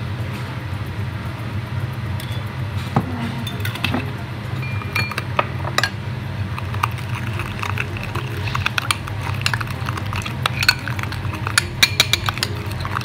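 Metal spoon stirring a wet sauce in a ceramic bowl, clinking and scraping against the sides, with the clinks coming thicker in the last few seconds. A steady low hum runs underneath.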